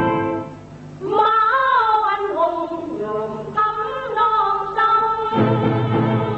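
Vietnamese cải lương stage music: a held instrumental chord fades out, then a high solo voice sings a wavering, ornamented melody over sustained accompaniment, with the low instruments coming back in near the end.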